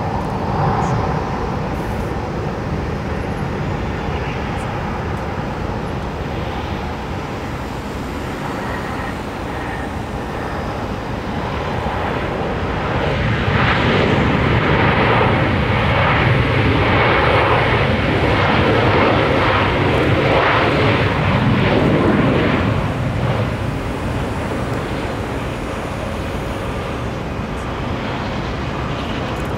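Jet engines of an Airbus A320-family airliner landing and rolling out on the runway: a steady roar that grows louder for about ten seconds in the middle, then eases back.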